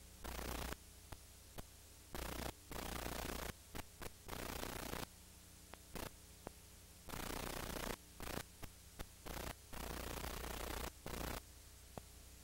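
Static hiss from an old, worn recording, cutting abruptly in and out in irregular bursts a fraction of a second to a couple of seconds long. A faint electrical hum sits underneath in the quieter gaps.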